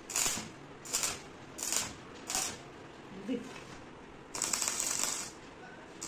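Stick (arc) welder tack-welding a steel latch bar to a plate: four short bursts of arc noise in quick succession, then a longer burst of about a second near the end.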